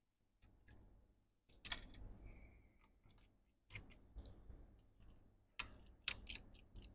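Faint, scattered clicks and small ticks of a precision screwdriver working the tiny screws inside a MacBook Pro A1990, coming in small clusters, with a short faint squeak about two seconds in.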